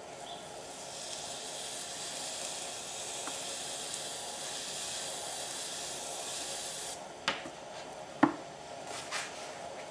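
Electrolyte-soaked electropolishing wand sizzling against a stainless steel weld seam as current flows: a steady hiss that cuts off suddenly about seven seconds in, followed by a few sharp clicks.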